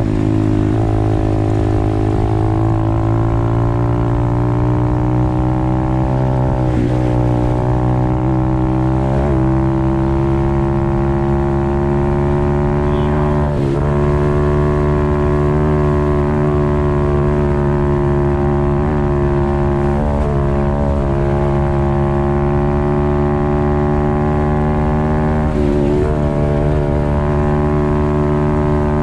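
Apollo RFZ 125cc pit bike's single-cylinder four-stroke engine running at high, nearly steady revs on a top-speed run. The engine note dips briefly a few times.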